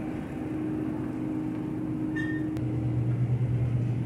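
Steady low electrical hum of supermarket refrigerated display cases, growing stronger about two and a half seconds in. A short beep sounds about two seconds in.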